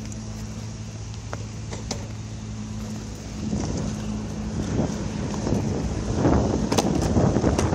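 Longboard wheels rolling on asphalt, the rumble growing louder from about halfway as the board picks up speed, with a few sharp clicks of the board and feet. A steady low hum runs under the first half.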